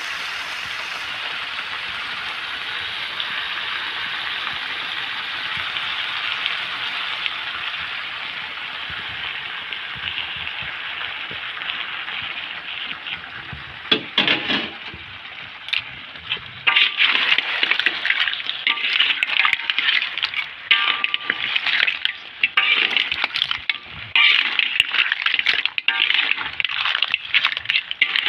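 Sambal sauce sizzling steadily in the pan with a little of the seafood boiling water added. From about halfway through, repeated sharp clatters and clinks of clam shells and seafood being stirred in the pan.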